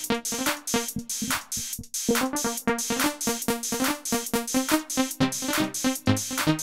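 Roland XPS-30 synthesizer keyboard playing electronic music: a fast, even drum-machine beat under quick pitched synth notes.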